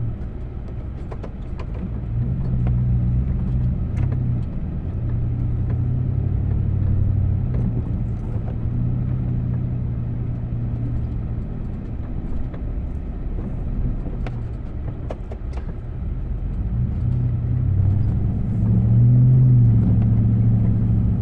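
A vehicle engine running steadily, swelling in pitch and loudness a couple of times as it works, loudest near the end, with scattered light knocks.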